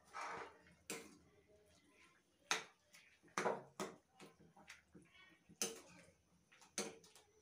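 Metal spoon stirring a wet bean and potato curry in a steel pan on a gas stove: about six short scrapes and knocks of metal on the pan, unevenly spaced.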